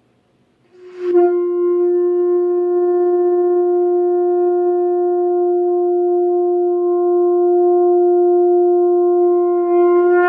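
Conch shell (shankha) blown in one long, steady note, starting about a second in and held for about nine seconds, swelling slightly just before it stops.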